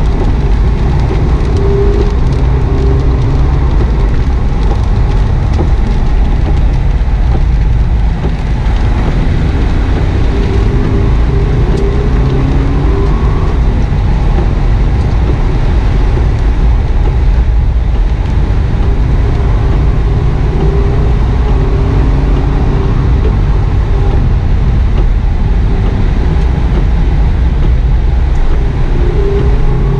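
Engine of a 2009 Subaru WRX, a turbocharged flat-four, heard from inside the cabin under hard driving. Its revs rise and fall between about 3,500 and 4,300 rpm through third and fourth gear, with tyre and spray noise from wet tarmac.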